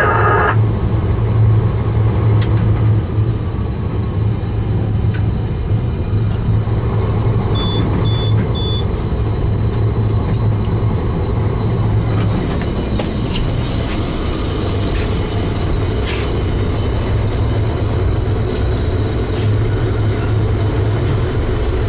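Diesel-electric freight locomotive running as it rolls slowly, heard from the cab, with a steady low drone. About eight seconds in come three short high beeps, and scattered clicks and rattles follow in the second half.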